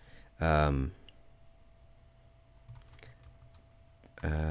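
Computer keyboard typing, a few faint keystrokes as a word is typed, between two short hummed vocal sounds from the typist about half a second in and near the end, which are louder than the typing.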